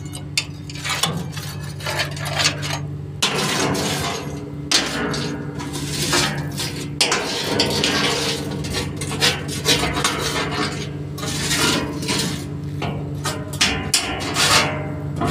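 A tool scraping and clanking against the steel tipper body of a Hyva dump truck, knocking off wet iron ore fines that have stuck to it, in irregular strokes. The truck's diesel engine runs steadily underneath.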